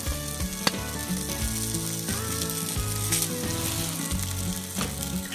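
Yakitori skewers sizzling over a charcoal grill, fat dripping onto the hot coals, with a sharp click about a second in.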